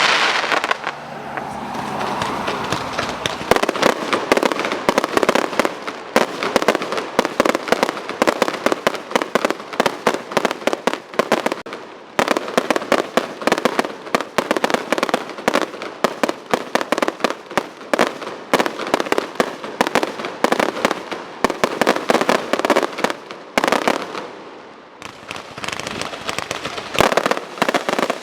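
Fireworks display: a dense, rapid barrage of bangs and crackling, easing off briefly near the end before building up again.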